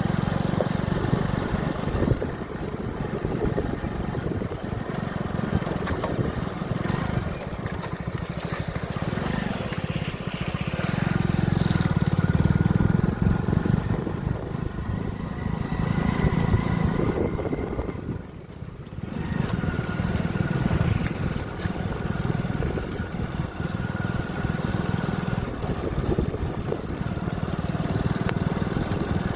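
Motorcycle engine running during a ride, mixed with a steady rushing noise. The sound drops away briefly about two-thirds of the way through, then picks up again.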